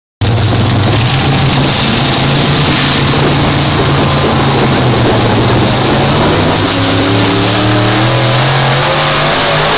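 Ford pickup truck's engine running loud at high revs at a truck pull, under load on the weight sled, its pitch climbing over the last couple of seconds.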